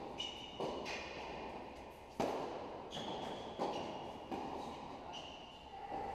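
Tennis ball being struck back and forth with racquets in a rally, a run of sharp pops each ringing on in the large indoor hall, with short high squeaks between hits.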